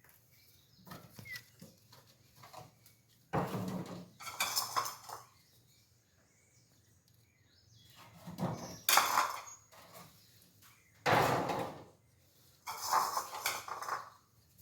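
Cat food dishes being handled and cleaned, in about five short, noisy bursts with quiet gaps between.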